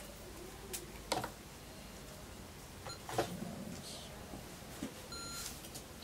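Faint scattered knocks and clicks of a laptop being handled and set up, with a short electronic beep a little before the end.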